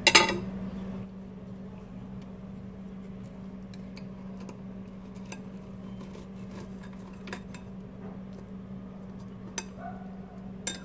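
Knife and fork clinking against a ceramic plate while cutting a savoury pie: one sharp clink at the start, then only faint scattered taps. A steady low hum runs underneath.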